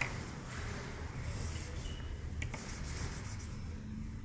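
Chisel-tip marker rubbing across paper in repeated short strokes, filling in a solid black area, with a couple of light ticks.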